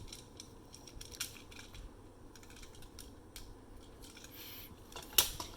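Plastic parts of a transforming toy train clicking and tapping as its sections are opened and the phoenix's wings are flipped out, with one sharper, louder click about five seconds in.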